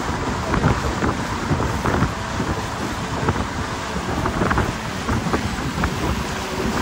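Wind buffeting the microphone on an open fishing boat running at speed, with the hull thudding irregularly over the chop.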